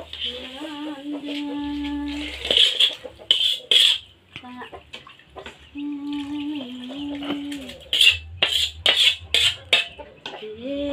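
Metal spatula scraping and clanking against a wok as its contents are tipped into an aluminium pot, in a few sharp strokes about three seconds in and again near the end. Twice a long, steady-pitched sound is held for a second or two.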